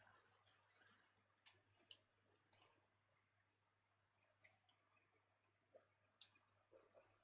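Near silence with faint, scattered small clicks, about a dozen spread irregularly: small tablet parts being handled and set down.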